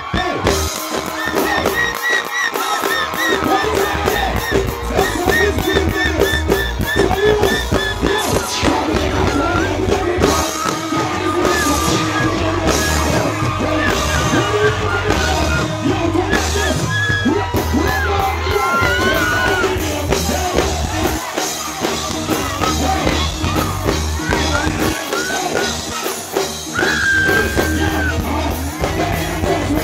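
Loud live reggae-dancehall music: a vocalist singing and shouting over a heavy bass line and drums, starting abruptly.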